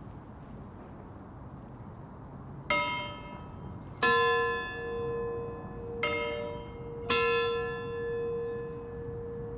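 Two church bells heard at a distance, striking alternately four times, starting about three seconds in, over a low steady outdoor background. Each strike rings and fades, and the lower bell's deep tone hums on after its strokes.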